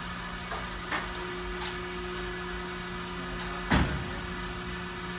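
Steady hum of workshop machinery, with a few light clicks and one louder, sharp knock a little before four seconds in.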